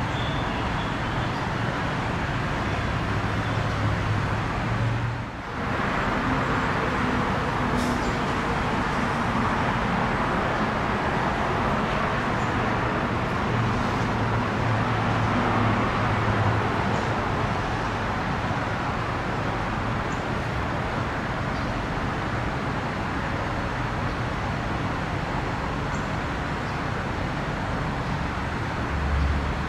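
Steady outdoor background noise of road traffic, a continuous rumble and hiss, dipping briefly about five seconds in.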